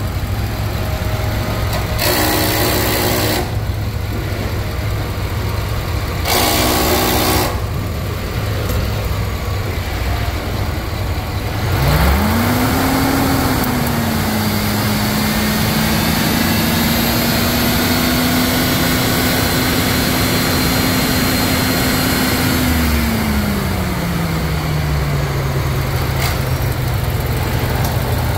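A 2008 GM/Chevrolet 4.8-litre gasoline V8 running in the truck. It idles with two short bursts of noise about two and six seconds in. About twelve seconds in it is revved up and held at a raised speed for about ten seconds, then drops back to idle.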